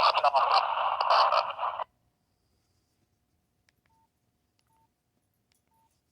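Sangean DT200VX ghost box sweeping the AM band: choppy, rapidly chopped static and station fragments that cut off abruptly about two seconds in. After that comes near silence with three faint short beeps.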